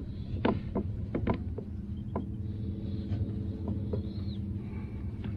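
Spinning reel and rod handled while the jig is dropped: a few light, sharp clicks in the first couple of seconds and a couple more later, over a steady low hum.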